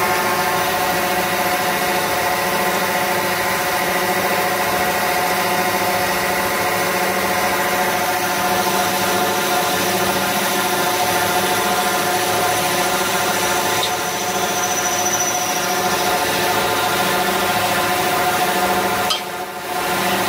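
CNC lathe spindle and cutting tool turning a white plastic workpiece: a steady machine whine of several fixed tones over a rough cutting noise, dipping briefly near the end.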